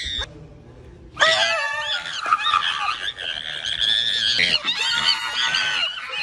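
A person shrieking: long, high-pitched, wavering screams that start about a second in, with a brief dip near the end.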